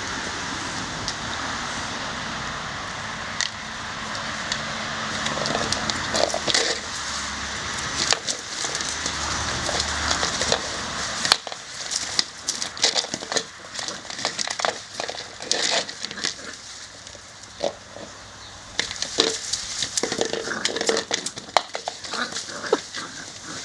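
Cocker spaniel puppy playing wildly: a run of sharp clicks, knocks and rustles, denser and sharper after about halfway, with a few short animal noises among them.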